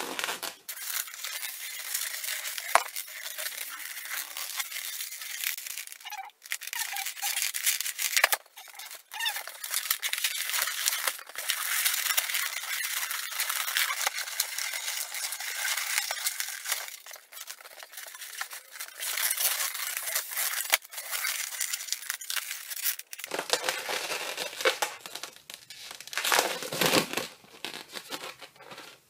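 Silver 260Q latex modelling balloon rubbing and crinkling against the hands as it is bent and twisted, with brief pauses and a few sharp clicks.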